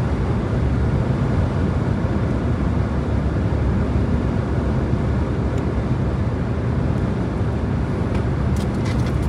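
Car travelling along a highway: a steady low rumble of engine and tyre noise.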